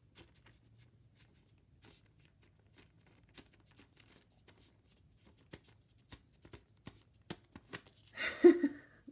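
Light clicks and rustles of hands handling rolls of washi tape and their packaging, sparse at first and busier after about five seconds, with a louder rustling burst near the end.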